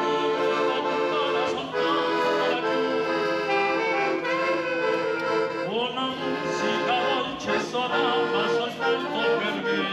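Music: held chords with a moving melody line over them.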